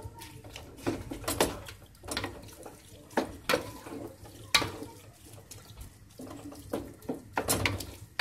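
A spoon stirring chopped tomatoes, onions and peppers sautéing in oil in a large metal pot, knocking and scraping against the pot at irregular intervals over a low sizzle.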